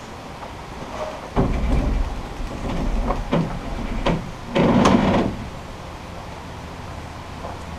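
Plywood dory hull being rolled over by hand on support ropes, giving wooden thumps and knocks: a low rumbling thud about a second and a half in, a few sharper knocks, then the loudest, a short scraping rush about five seconds in.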